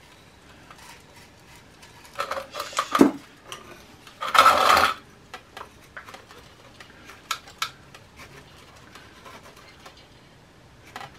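Granular bonsai soil poured from a metal soil scoop into a shallow pot: a gritty rattling hiss in short pours, about two seconds in and again, loudest, about four and a half seconds in. After that, light clicks and scratches of a wooden stick poking the soil in among the roots.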